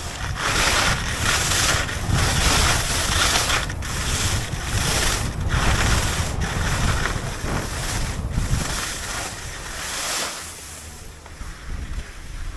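Skis scraping and carving over packed, tracked snow in a run of turns, a loud hiss that surges and eases about once a second, with wind rumbling on the action camera's microphone. It grows quieter near the end as the skier slows.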